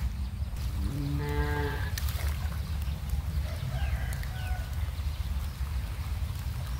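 A cow moos once, a single call of about a second, over a steady low rumble.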